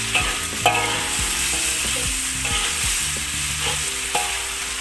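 Chicken and pumpkin sizzling in a steel wok while a metal spatula stirs and scrapes, knocking against the wok a couple of times near the start. The chicken is being fried dry until it releases its oil, before water goes in.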